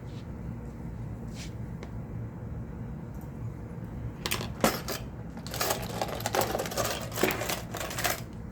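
Small hand tools clicking, tapping and scraping against a phone's frame and parts in quick clusters through the second half, while an adhesive-held volume-button part is pried loose.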